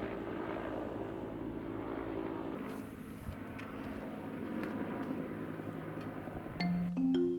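A steady engine hum with a few held tones. Near the end, bright marimba-style music notes come in.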